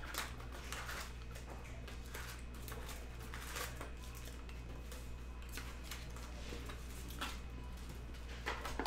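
Shrink-wrap and a trading card box being torn open and foil card packs handled and stacked: irregular crinkling and rustling, over a steady low electrical hum.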